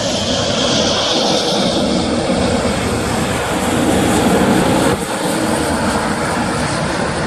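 Jet airliner passing close by with a loud, steady engine roar. A high whine falls in pitch and fades out in the first second or two, and the roar swells before dipping briefly about five seconds in.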